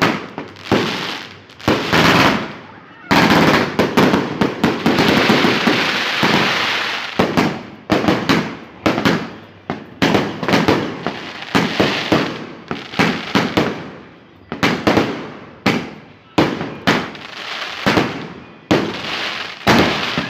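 Fireworks going off in rapid succession: a continuous series of sharp bangs and pops, with a dense run of crackling from about three to seven seconds in.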